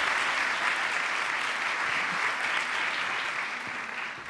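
Audience applauding steadily, beginning to fade near the end.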